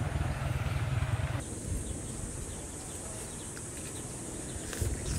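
A low rumbling noise for about the first second and a half, then an abrupt switch to a steady high-pitched insect drone, with a few faint clicks near the end.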